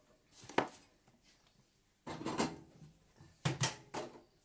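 Kitchen handling noises: a few separate knocks and clatters of cookware and fittings being moved and set down, like a drawer or cupboard door shutting, spread through the few seconds, with a double knock about three and a half seconds in.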